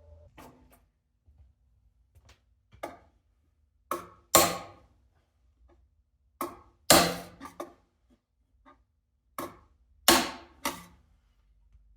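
Hammer blows, about ten irregular strikes, several of them in quick pairs about half a second apart, the loudest ringing briefly.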